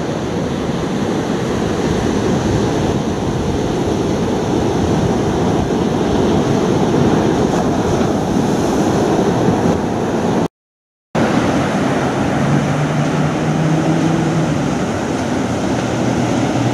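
Ocean surf breaking on a beach, with wind buffeting the microphone: a loud, steady, low rushing noise. A little past the middle it cuts out to silence for about half a second, and a faint low hum sounds for about two seconds afterwards.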